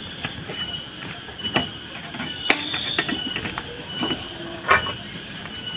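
Scattered clicks and knocks of hands working at a motorcycle's seat and fuel tank, with a bamboo tube held against it, over a faint, steady, high insect chirping.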